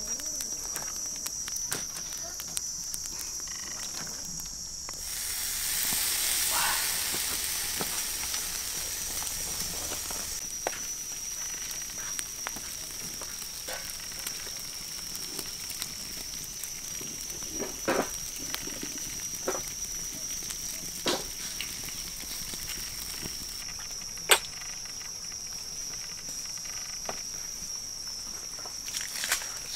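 Charcoal and wood cooking fire crackling with scattered sharp pops. A few seconds in comes a hiss that lasts about five seconds, like food sizzling on the fire. Under it all runs a steady high-pitched drone of insects.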